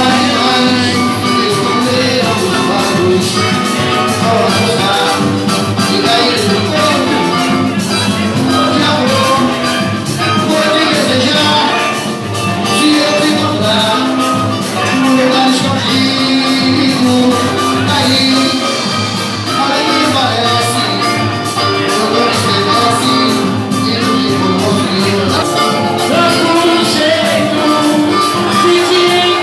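Live band playing upbeat Brazilian popular music with a steady, driving percussion beat.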